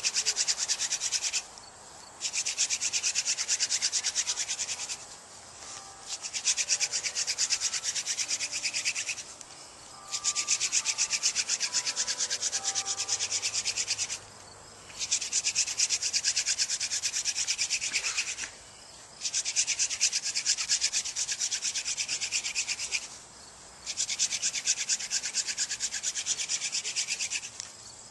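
Friction-fire hand drill: a wooden spindle spun rapidly back and forth between the palms, grinding into a wooden hearth board with a fast, rasping rub. It comes in bouts of three to four seconds, about seven of them, each broken off by a short pause as the hands go back to the top of the spindle.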